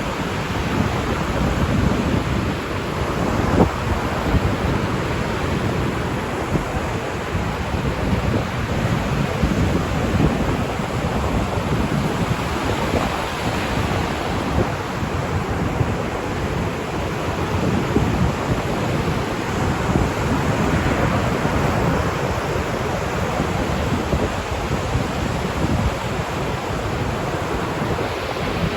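Ocean surf washing onto a beach: a steady rush of breaking waves with a deep rumble underneath.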